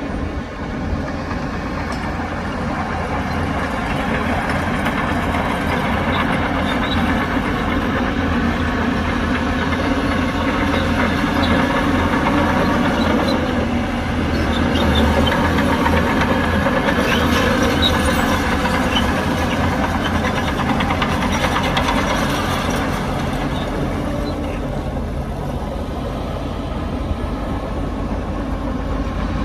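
Heavy diesel earthmoving machinery working under load, its engine rumbling steadily and building up in the middle, with occasional light metallic clanks.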